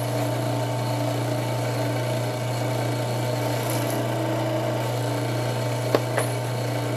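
Drill press motor running steadily with a small primer pocket reamer chucked in it, giving a low, even hum. Two sharp clicks come about six seconds in.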